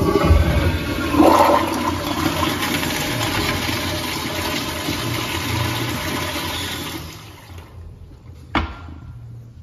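Kohler toilet with a commercial flushometer valve flushing: a loud rush of water for about seven seconds that then tapers off. A single sharp knock follows near the end.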